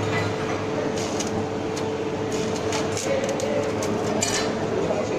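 Electric arc welding on a flat plate: the arc makes a steady crackling hiss with irregular sharp pops, over a steady low hum.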